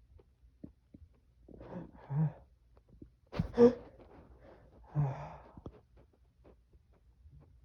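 A man's heavy, sighing breaths as a sneeze builds from snuffed sneezing powder, with one short, sharp burst of breath about three and a half seconds in, the loudest sound.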